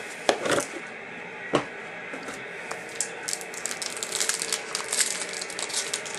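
A trading-card box and its pack being opened by hand: a few separate clicks and cracks at first, then a dense run of crinkling and crackling from about halfway through.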